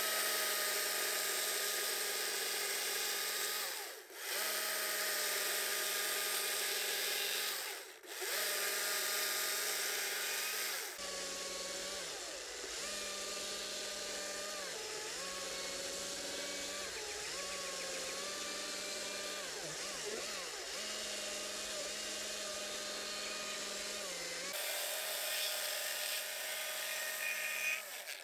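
Battery chainsaw's electric motor whining at speed, letting off briefly twice. Later its pitch sags and recovers again and again as the chain bites into a fallen log.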